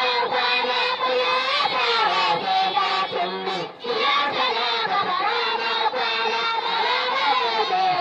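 Voices singing a bege, a Hausa song in praise of the Prophet Muhammad, in a flowing, held melody, with a short break about three and a half seconds in.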